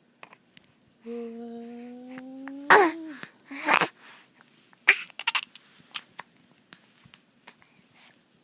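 Hiccuping: a held hum with a slightly rising pitch, about a second and a half long, is broken off by a sharp, loud hiccup. A short breathy sound and a few light clicks follow.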